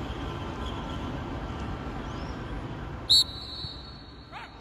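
A coach's whistle blown once about three seconds in: a sharp, high blast that carries on more quietly for over a second, over the open-air background noise of a training pitch.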